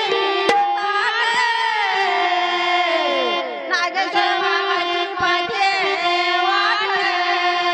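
Marathi devotional bhajan: singing over melodic accompaniment with held notes that step from one pitch to the next.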